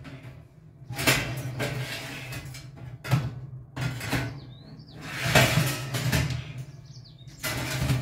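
Metal baking tray scraping and clattering against the wire side runners of a Beko oven in several uneven bursts as it is pushed in. It is lodged on runners at two different levels, so it catches instead of sliding home.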